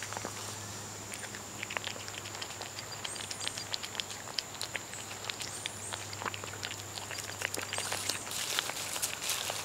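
A cat eating wet tuna from a bowl close to the microphone: irregular small wet clicks and smacks of chewing and licking. A faint steady high whine sits behind it.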